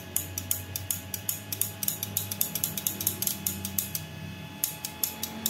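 Bi-LED projector's high/low beam shutter clicking rapidly back and forth, about five clicks a second, with a short break near the end before a few more clicks.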